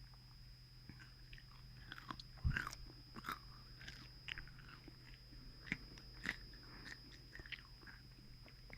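Close-miked chewing and biting of fast food, with scattered short crunchy clicks and one louder bite about two and a half seconds in, over a faint steady hum.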